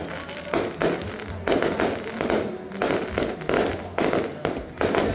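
Fireworks going off in an uneven run of sharp bangs, about one or two a second, each followed by a short crackling tail.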